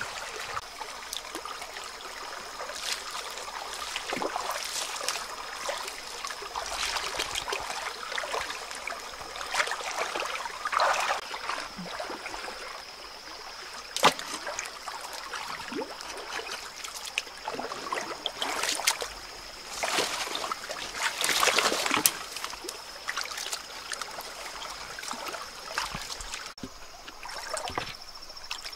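Shallow stream water splashing as a wading person jabs a stick into it, with several sudden splashes over a constant trickle.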